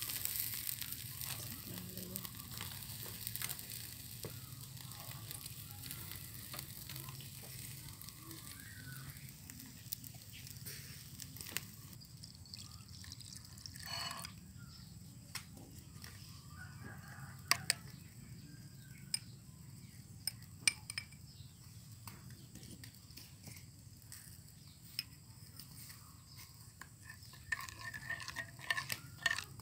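Whole fish grilling on a wire grate over charcoal: a steady hiss of sizzling that fades away over the first dozen seconds. Then a sauce is poured into a ceramic bowl and a metal spoon clinks against it a few times, with a quick run of stirring clinks near the end.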